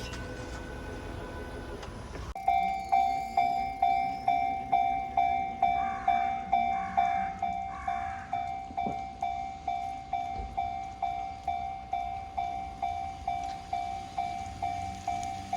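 Japanese railway level-crossing warning bell ringing its steady 'kan-kan', about two strikes a second, starting abruptly a couple of seconds in after steady low rumbling noise.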